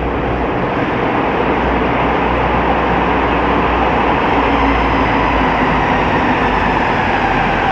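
Ganz UV tram running at speed, heard from aboard: a steady, loud rumble of wheels and running gear on the rails, with a faint whine that slowly falls in pitch in the second half.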